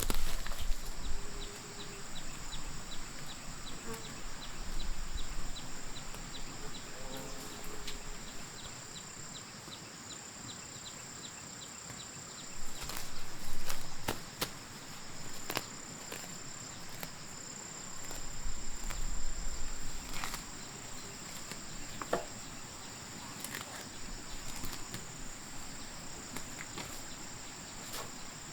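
Insects chirring in a steady high-pitched drone. A run of rapid faint ticks comes in the first third, and scattered knocks and rustles come through the middle.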